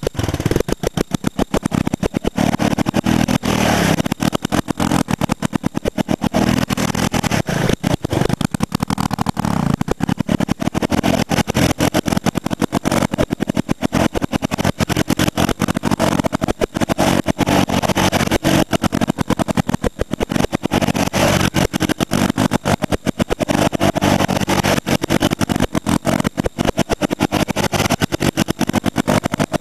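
Honda Big Red 250ES three-wheeler's single-cylinder engine running and revving up and down during donuts in snow. The recording is choppy, broken by rapid brief dropouts throughout.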